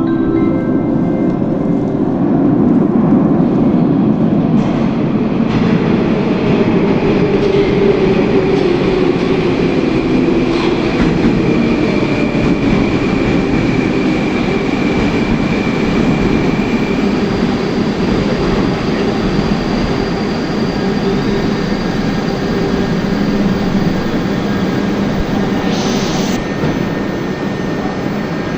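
Moscow metro train of the 'Moscow 2024' type, heard from inside the car, running with a steady rumble. A thin whine comes in about a third of the way through and gives way to a fainter, higher one, and there is a short hiss near the end.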